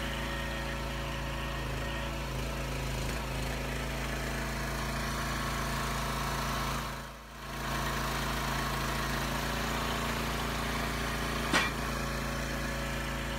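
Small petrol engine of a log splitter running steadily, with a brief dip in level about halfway through and a single sharp click near the end.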